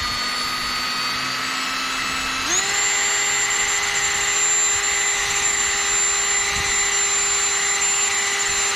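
Motor of a homemade line-removing tool running steadily as it spins the old fishing line off a Zebco 33 reel, with a steady whine. About two and a half seconds in, it speeds up to a higher pitch and holds there.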